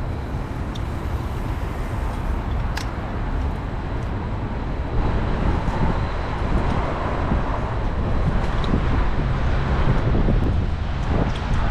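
Wind buffeting the microphone in a steady, low rumbling rush that grows louder about five seconds in.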